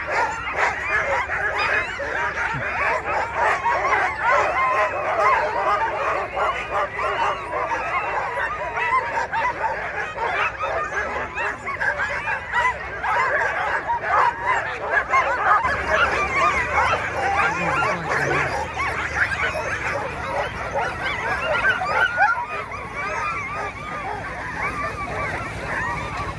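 A crowd of harnessed sled dogs barking, yipping and howling all at once in a dense, unbroken chorus, the excited clamour of racing teams eager to be let go at the start line.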